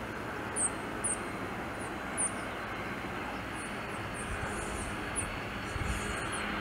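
Boeing 767-300ER freighter's General Electric CF6 turbofans on final approach and flare: a steady jet rumble with a faint high engine whine. The main wheels touch down near the end.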